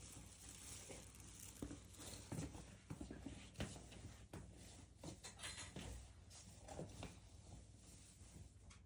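Near silence: room tone with faint, scattered small knocks and rustles of someone moving about out of view.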